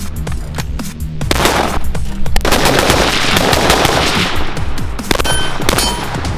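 Real firearm gunfire: a rapid string of shots at a shooting range, with background music underneath.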